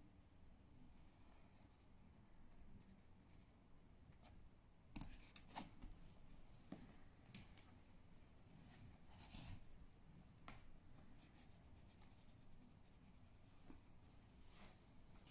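Faint rustling and scratching of cloth and a cushion as a small kitten shifts about under a black fabric drape: a scatter of soft scrapes and ticks, most of them around the middle, over near-silent room tone.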